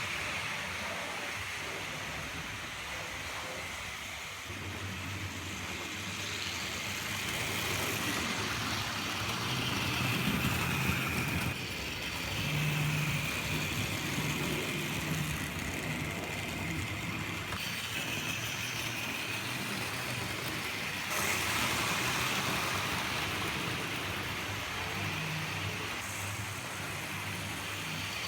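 Vintage Tri-ang Hornby OO-gauge model trains running around the track, their electric motors humming and wheels rattling on the rails, the noise swelling and easing as the trains pass.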